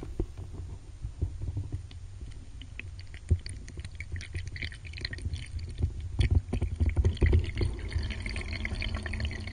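Muffled water moving around a submerged camera: a steady low rumble, joined from about three seconds in by many small, irregular clicks and crackles and a few louder knocks.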